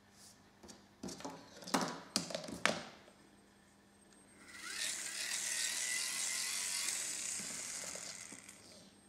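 A few handling clicks and knocks, then a small DC motor with a crank handle spun by hand, whirring steadily for about four seconds with a faint whine that rises as it speeds up, fading near the end.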